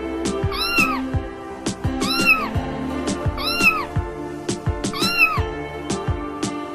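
Domestic cat meowing four times, evenly spaced, each meow rising then falling in pitch, over background music with a steady beat.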